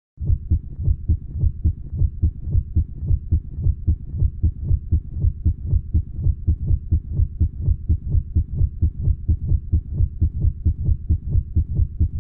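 Heartbeat sound effect: a steady, fast run of low thumps, evenly spaced, with no speech or melody over it.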